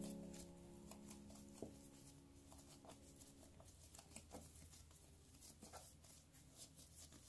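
Faint, soft pats and sticky squishes of a piece of milk-bread dough being rounded into a ball between the hands, irregular and close. A piano note from the background music fades away over the first few seconds.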